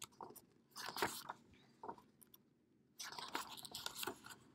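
Pages of a hardcover picture book being turned by hand: faint crisp rustling and crackling of paper with small clicks, and a longer rustle near the end as a page goes over.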